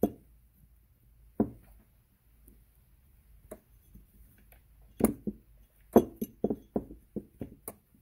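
Light clicks and taps of metal and plastic carburetor parts being handled and pried at on a Holley two-barrel carburetor: a few scattered clicks, then a quick run of about eight from about five seconds in.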